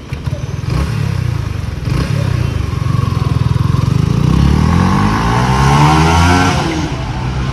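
Yamaha R15 V3's 155 cc single-cylinder engine running, its pitch climbing steadily over a few seconds as it revs up, then dropping back near the end.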